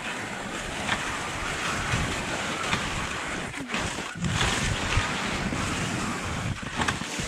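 Wind buffeting the microphone with an uneven low rumble, over a steady hiss from skis gliding through snow.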